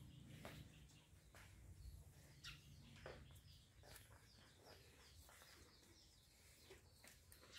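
Near silence: faint, scattered bird chirps over a low steady hum, with a few soft clicks.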